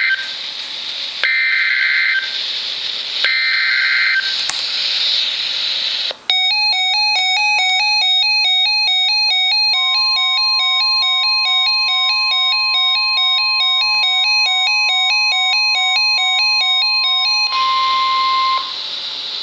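NOAA Weather Radio emergency alert through a receiver with static: three short buzzy SAME data bursts in the first few seconds. Then an electronic alarm rapidly switches back and forth between tones for about eleven seconds. The long steady Weather Radio warning tone sounds beneath it and is heard briefly on its own near the end, before the receiver falls back to hiss.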